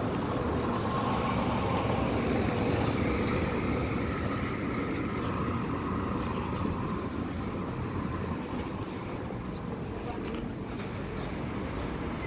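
Car running slowly through a car park: a steady engine hum and tyre and road noise, the engine tone rising and falling a little.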